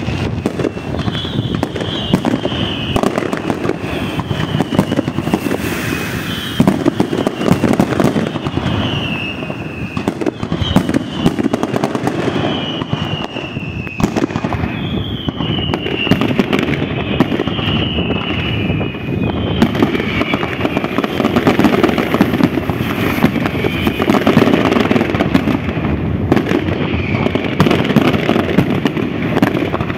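Fireworks display: aerial shells bursting in a constant run of bangs and crackling, with repeated whistles falling in pitch, about one a second, for most of it.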